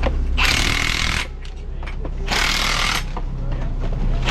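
A hammering power tool rattles in three short bursts, each under a second long, over the steady low drone of an engine running.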